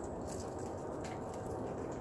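Steady low outdoor rush with a few faint, light ticks scattered through it.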